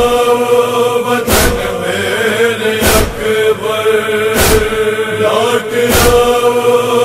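Male chorus holding a low, sustained chant between the sung lines of a Shia noha, with a sharp beat about every second and a half, four in all, keeping the matam rhythm.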